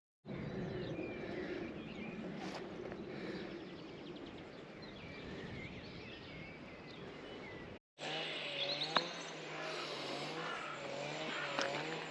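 Faint outdoor ambience with birds chirping on and off. The sound drops out briefly twice, where one clip is cut to the next.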